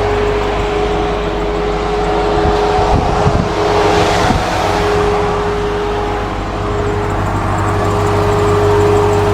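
An off-road vehicle's engine running steadily at low revs, with a few short knocks about three seconds in and again a little after four seconds.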